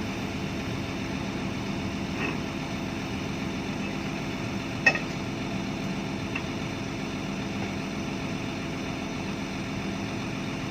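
Heavy diesel engine idling steadily, with a sharp click about five seconds in.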